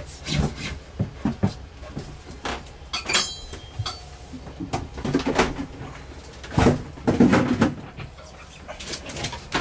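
Flexible toilet discharge hose being threaded back through a boat's wooden cabinetry: scattered knocks, scrapes and rubbing of the hose against the panels. A brief high squeak comes about three seconds in, and the loudest scraping and clattering comes around seven seconds.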